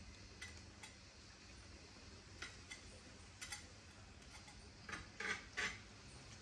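Kitchen utensils clicking and tapping faintly and irregularly, with three louder taps in quick succession about five seconds in.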